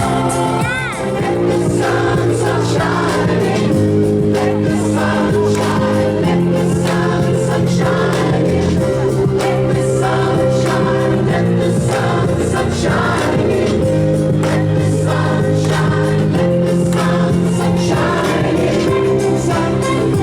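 A choir singing a song in harmony, with long held chords.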